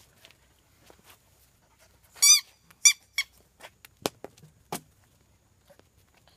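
Small squeaky toy ball squeaking three times, one longer squeak then two short ones, followed by two sharp knocks.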